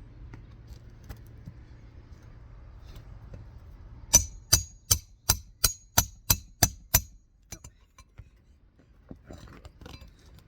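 Hammer driving a roofing nail into a replacement asphalt shingle: about nine quick, evenly spaced strikes with a metallic ring, then a few softer taps.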